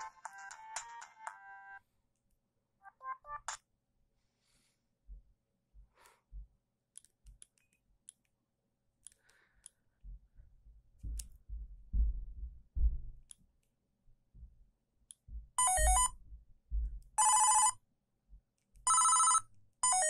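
Siemens CF62 mobile phone playing ringtones through its small loudspeaker: a polyphonic melody ends about two seconds in, a short run of notes follows a second later, and near the end a ring tone sounds four times in short, evenly spaced bursts. A few low thumps come in between.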